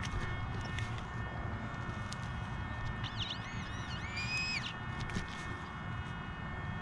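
XP Deus II metal detector in pitch-tone mode giving a warbling electronic tone that dips and rises as the coil is swept over a target, then holds a brief steady tone. It starts about three seconds in and lasts under two seconds; the target is an iron bottle cap. A steady low background rumble runs underneath.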